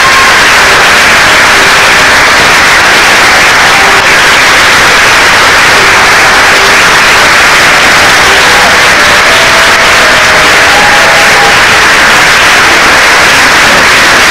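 Loud, steady static hiss that swamps the recording, with a few faint held notes at changing pitches beneath it.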